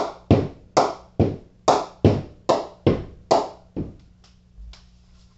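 A ball bounced repeatedly on the face of an SG HP Icon English willow cricket bat to test its ping: about ten sharp, ringing knocks, two or three a second, then a couple of fainter taps near the end. The ping is top quality.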